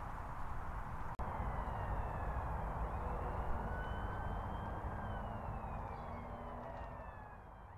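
Steady distant vehicle rumble, with faint thin whines that slowly rise and fall, fading out near the end.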